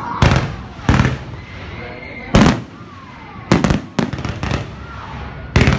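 Aerial fireworks shells bursting in a display: a series of sharp booms, two single ones early, a quick rattle of several in the middle, and another near the end.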